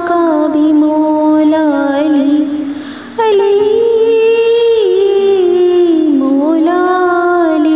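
A high voice singing a devotional Urdu manqabat in praise of Ali, drawing out long, wavering melismatic notes in two phrases with a short break for breath about three seconds in.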